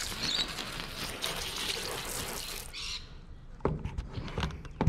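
Water spraying from a garden hose nozzle onto a wooden cutting board to rinse it, a steady hiss that cuts off suddenly about two and a half seconds in. A few sharp knocks follow near the end, with birds chirping faintly throughout.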